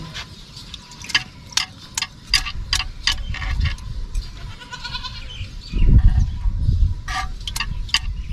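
A hand sloshes through buttermilk in a clay pot, gathering churned butter, with a run of small wet clicks and splashes. A goat bleats once about halfway through, and a low rumble follows about six seconds in.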